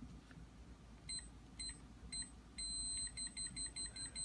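Electronic keypad door lock (ASTC PW3002) beeping: a few short high key-press beeps about half a second apart. About two and a half seconds in, a sustained, rapidly repeating beep begins, the lock's alarm after a third wrong code, which blocks the keypad.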